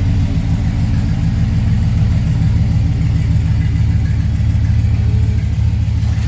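2007 Chevrolet Silverado's 5.3-litre V8 idling steadily, heard up close from the wheel well beside the exhaust headers. The engine is running for a check on whether the exhaust leak at the header is fixed after new header bolts and gasket.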